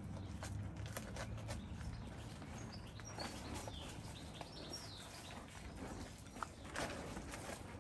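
Labrador puppies chewing and tugging at a cardboard paper-towel tube, with scattered soft crunches, clicks and scuffles.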